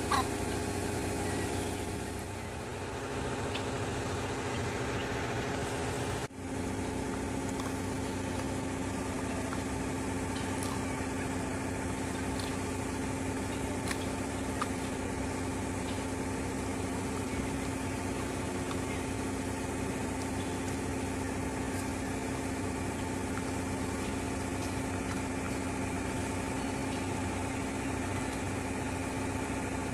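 A steady motor hum like an idling engine, holding one pitch, with a brief drop about six seconds in.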